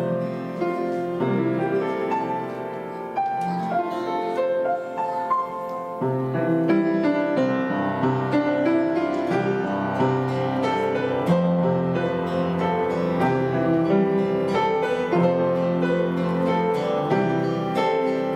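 Piano playing a Christmas hymn medley in sustained chords and melody, the texture growing fuller about six seconds in.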